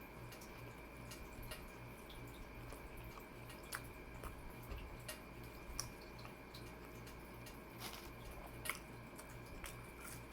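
Faint wet clicks and mouth sounds of someone chewing a meatball marinara sub, a few at irregular moments, over a low steady hum.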